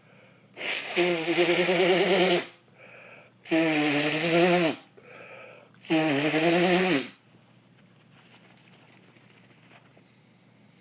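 A man sneezing three times in a row, loud and drawn out, each sneeze about a second and a half long with his voice in it. Short gasping in-breaths come between the sneezes, in a sneezing fit from a tickly nose.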